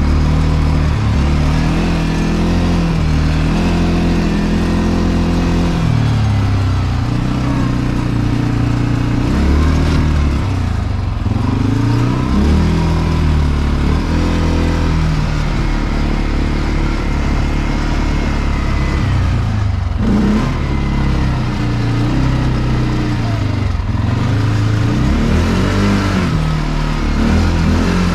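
CFMoto 450L ATV engine running under load, its revs rising and falling again and again as the quad is ridden.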